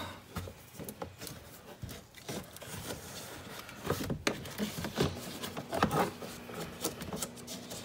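Irregular light clicks, knocks and rubbing as a taped wiring bundle and its plug are handled and pushed into place among the hard plastic inside a car door.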